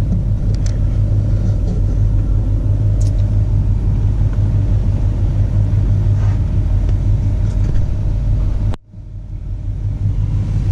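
Automatic car wash working over a pickup truck, heard from inside the cab: a steady low rumble under the hiss of water and foam spraying across the windshield. About nine seconds in the sound drops away sharply, then builds back up.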